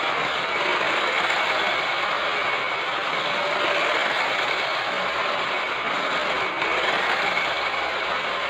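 Radio-controlled Scania 770S model truck running: a steady whirring of its electric motor and drivetrain, with a faint high whine.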